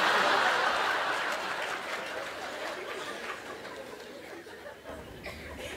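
Audience laughing, loudest at first and slowly dying away over several seconds.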